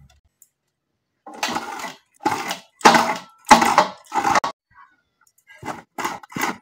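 A coconut half is scraped against the serrated blade of a hand coconut scraper (kuruni) to grate the flesh: a series of short scraping strokes, starting about a second in and coming quicker near the end.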